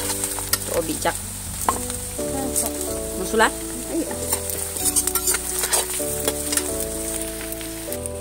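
Sliced onions sizzling and crackling in hot oil in a steel wok, with a metal spoon scraping and stirring through them. Soft background music with held notes that change every second or so plays underneath.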